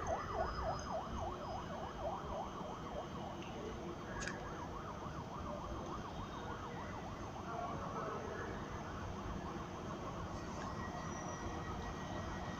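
Emergency vehicle siren in a fast yelp, gliding up and down about four times a second, fainter after about three seconds, over a low steady rumble.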